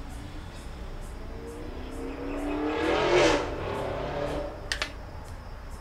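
A motor vehicle accelerating past, its engine note rising for about two seconds to a loud peak a little after three seconds in, then fading. Two sharp clicks near the end.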